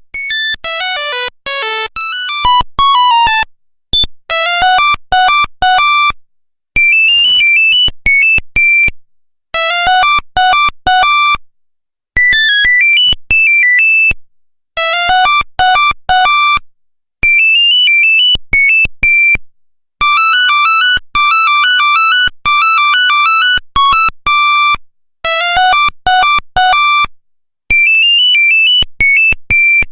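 Nokia 1100 monophonic ringtones playing one after another: short, buzzy single-note melodies of a few seconds each, with brief silences between them.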